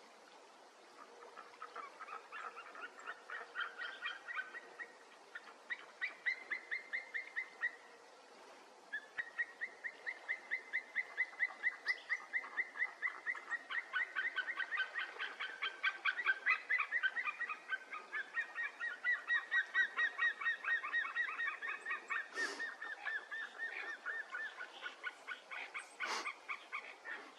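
White-tailed eagles calling in courtship: long runs of rapid yelping notes, one run after another. Through the middle two birds' runs overlap at different pitches as the pair duets. A couple of sharp clicks near the end.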